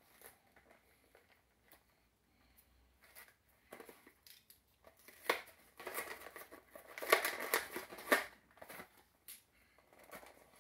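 Action figure's clear plastic blister packaging being opened by hand: scattered crinkles and clicks, a sharp crack about five seconds in, then a dense run of crackling plastic about seven seconds in.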